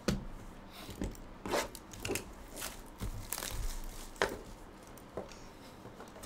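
Plastic shrink wrap crinkling and tearing as a sealed trading-card hobby box is unwrapped and handled, a string of short crackles and knocks with the loudest about four seconds in.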